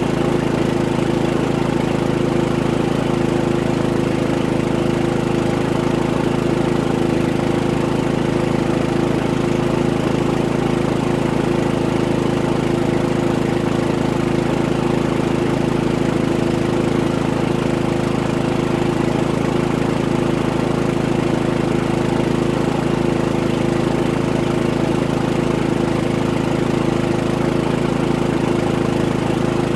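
Harbor Freight Predator 3500 inverter generator's single-cylinder engine running steadily under a load of about 1,750 watts, a steady even drone.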